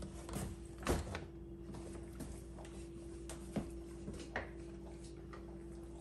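Dishwasher being handled as its door is shut and the machine is tipped back: a clunk about a second in and a few lighter knocks, over a steady hum.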